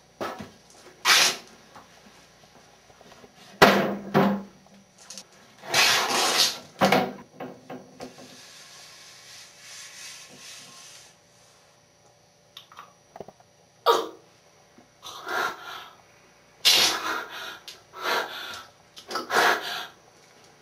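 A person's harsh, noisy gasps and coughing breaths, in about nine separate bursts of half a second to a second each, spaced a second or a few seconds apart, with a faint hiss in a lull around the middle.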